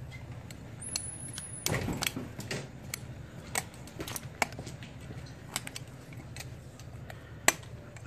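Small metallic clicks and scrapes of a thin pick tool working at the snap ring on a car air-conditioning compressor's clutch hub. There is a cluster of clicks about two seconds in and a single sharp click near the end.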